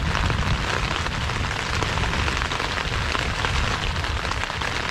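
Heavy storm rain pouring down, a dense steady patter of drops with a low rumble underneath.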